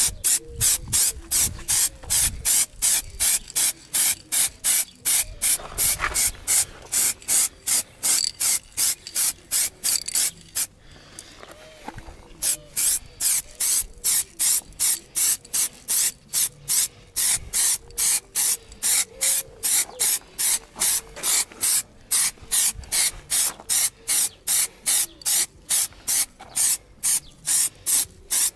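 Aerosol can of matte black spray paint sprayed in short, evenly spaced bursts, about two to three hisses a second, with a break of a couple of seconds about eleven seconds in.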